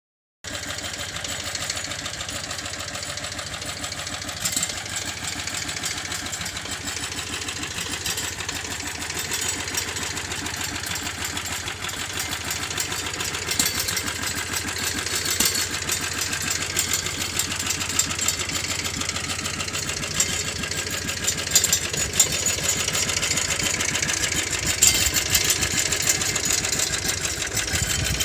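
Hakotrac compact tractor's engine idling steadily.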